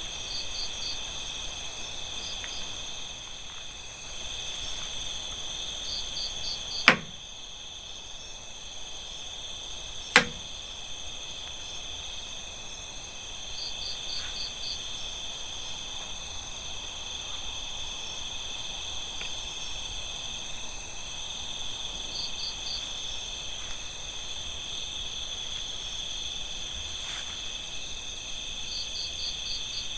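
Night insects, crickets, chirring steadily in several high-pitched bands, with short bursts of three to five chirps every few seconds. Two sharp, sudden snaps stand out above them, one about seven seconds in and one about ten seconds in, each falling quickly in pitch; they are the loudest sounds.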